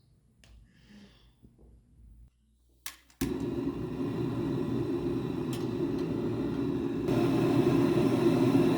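Steady rushing noise that starts suddenly just after a click about three seconds in, and gets louder about seven seconds in.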